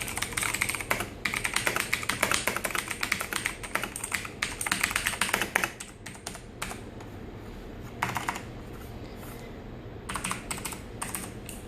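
Razer mechanical keyboard being typed on: a rapid flurry of key clicks for about six seconds, then scattered keystrokes with a short burst near the end.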